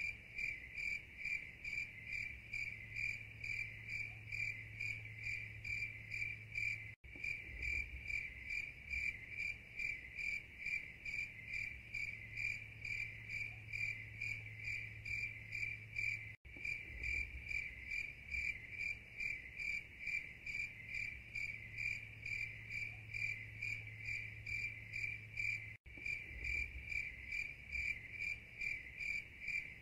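Insects chirping in a steady, even rhythm, a high tone pulsing about two to three times a second. It is a looped recording that cuts out for an instant three times, at evenly spaced points, and starts over.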